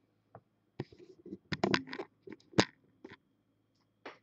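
Handling noises on a tabletop: a run of short scratches, scrapes and clicks about a second in, with the sharpest knock a little after the middle, then a few faint ticks.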